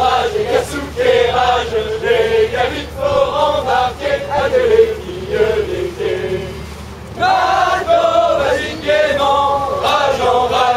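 A group of sailors singing a chant-like sea song together in unison, phrase after phrase. There is a short lull about six seconds in, and then the singing comes back stronger.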